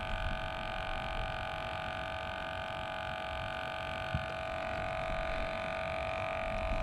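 A steady electric hum made of several fixed pitches, over a low rumble.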